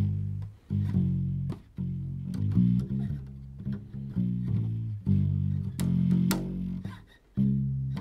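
Background music: a run of plucked guitar and bass notes, with a few brief pauses between phrases.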